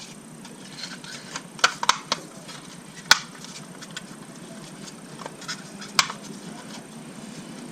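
Scattered sharp clicks and small knocks of hard plastic and metal parts being handled and fitted back together, a spring-loaded latch mechanism being reassembled, with a few louder snaps about a second and a half, two, three and six seconds in.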